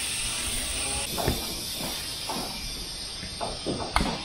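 Compressed air hissing from an air chuck into a tire's valve stem as a large off-road tire is inflated to seat its bead. The hiss drops away about a second in, and several short knocks follow.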